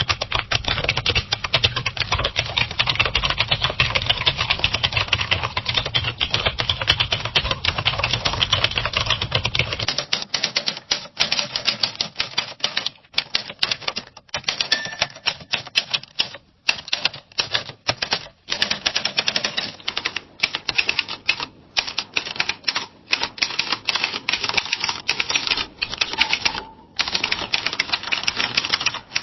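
Fast typing on a mechanical typewriter: a rapid run of sharp key strikes with short pauses between bursts. A low hum runs under the first ten seconds.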